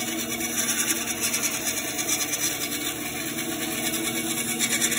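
Benchtop band saw running, its blade cutting a small wooden CO2-car blank along a curve, with short relief-cut sections breaking away as it goes. There is a steady motor hum under the cutting noise, and the sound turns brighter near the end.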